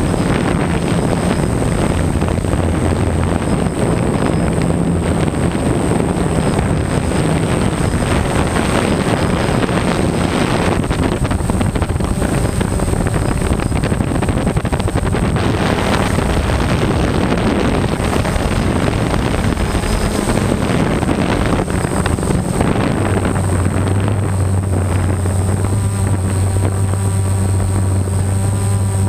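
DJI Phantom quadcopter's motors and propellers running, recorded from the GoPro mounted on the drone, with wind rush on the microphone. About 23 seconds in, the low motor hum changes pitch and grows stronger.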